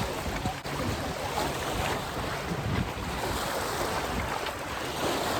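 Wind blowing over the microphone: a steady rushing noise with a ragged low rumble.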